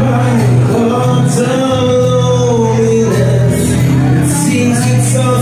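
A man singing live with an acoustic guitar, holding long notes over steady strummed chords, amplified through the stage PA.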